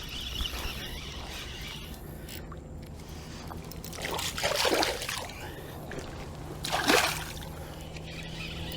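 Hooked channel catfish splashing at the water's surface during the fight: a longer splash about four seconds in and a shorter one near seven seconds.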